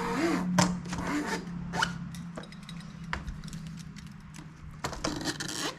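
New window-screen mesh being cut to rough size: irregular rasping, scraping cuts with several sharp clicks.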